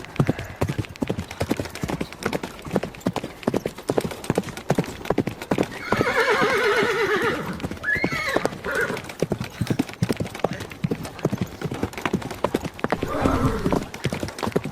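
A ridden horse's hooves clip-clopping in a quick, steady rhythm, with a long wavering cry about six seconds in and shorter calls near eight and thirteen seconds.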